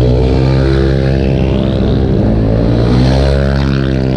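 Modified scooter engine running under way at steady speed. Its pitch wavers slightly around the middle.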